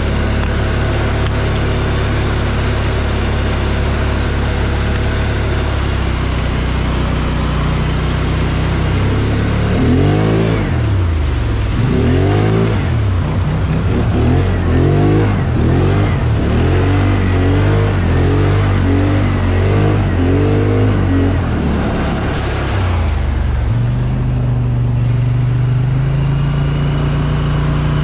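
Off-road vehicle engine running at a steady speed, then revved up and down about a dozen times, roughly once a second, before settling back to a steady, somewhat higher run.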